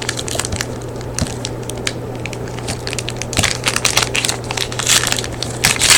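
Wrapper of a sealed trading card pack being torn open and crinkled by hand, a run of irregular crackling and crinkling noises.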